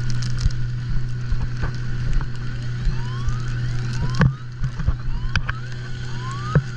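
Small outboard motor on a dinghy running with a steady low hum, with short rising whines recurring over it and a few sharp knocks.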